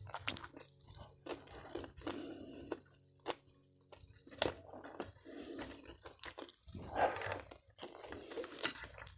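Close-miked eating sounds: irregular chewing and crunching of rice mixed with crushed krupuk crackers, with small crisp clicks between the chews.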